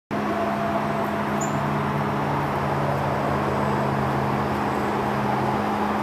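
Steady mechanical roar with a low droning hum; one strand of the hum drops out near the end.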